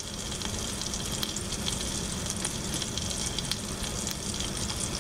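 Steady sizzling and bubbling of stovetop cooking: a pot of sweet potato chunks at a rolling boil, with chicken frying in butter in a skillet.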